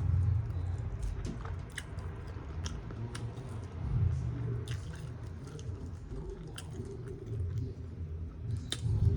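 A person chewing food close to the microphone, with many short wet lip smacks and mouth clicks.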